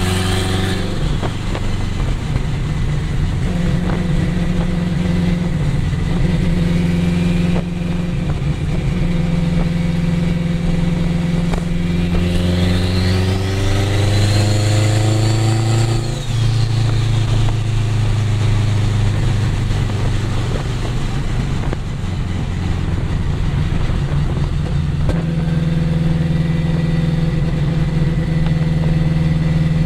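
The straight-piped, turbocharged K-series four-cylinder of a 2002 Acura RSX Type-S, heard from inside the cabin, drones steadily while cruising. About halfway through, the engine note climbs under acceleration for a few seconds, along with a high turbo whine. Both then drop off sharply.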